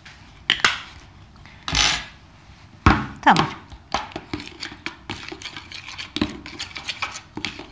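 Metal spoon clinking and scraping against a small bowl as a thick sauce of tomato paste and ketchup is stirred, with a few louder knocks in the first half and a run of quick small clicks in the second half.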